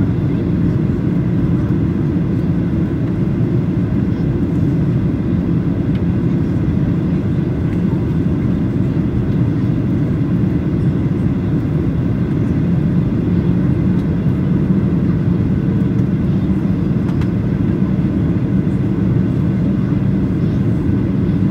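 Steady cabin noise of a Boeing 737-800 in descent: a low, even rumble of its CFM56 engines and the airflow over the fuselage, heard from a window seat over the wing.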